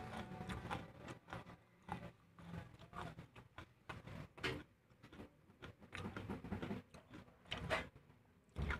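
Close-miked chewing and mouth sounds: irregular smacks and clicks as a mouthful is chewed with lips closed.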